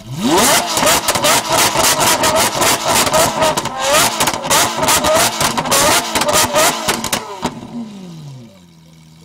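Lamborghini Aventador's V12 revved up from idle and held high with repeated blips for about seven seconds, with sharp cracks from the exhaust. It drops off suddenly near the end, and the note falls back to a steady idle.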